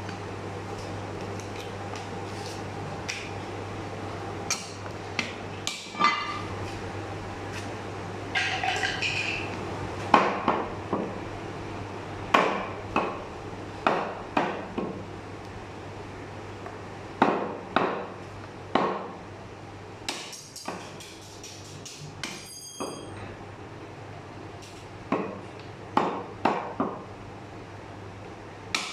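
Butcher's cleaver chopping mutton through meat and bone onto a wooden chopping block: repeated sharp chops, often in quick runs of two or three, over a steady low hum. A brief ringing clink comes about two-thirds of the way in.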